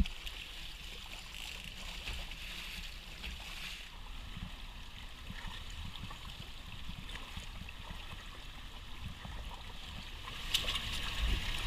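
Water splashing and gurgling against the side of a small boat, over a low steady rumble, with a sharp click near the end.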